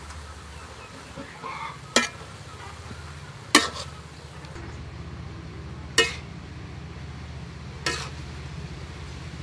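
Stir-frying noodles in a wok: a metal utensil tossing and scraping the noodles, striking the wok in four sharp clanks, over a steady low rumble.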